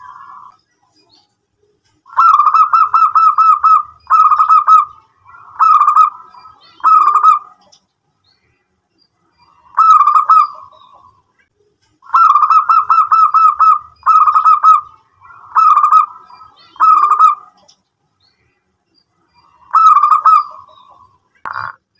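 Zebra dove (local perkutut) cooing: two full songs, each a fast rolling run of notes followed by three shorter coos, with a single coo between them and another near the end. A short knock just before the end.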